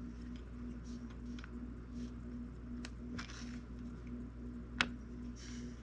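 Small clicks and soft scraping as metal sculpting tools and a clay model are handled on a wooden board, with one sharper click about five seconds in. Under it runs a steady low hum with a faint tone pulsing about two to three times a second.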